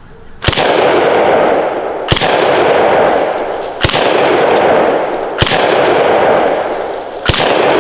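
Five 12-gauge blasts from a DDI LA-K12 Puma semi-automatic bullpup shotgun, fired one at a time about a second and a half to two seconds apart, each followed by a long echo. The last shot empties the magazine.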